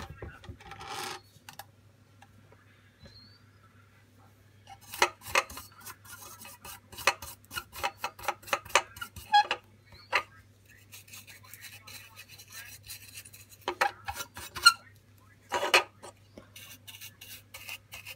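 Clicks, taps and knocks as a model locomotive body is handled and pressed on a table, in several short flurries. Near the end, a small bristle brush scrubs the body in quick repeated strokes. A faint steady low hum runs underneath.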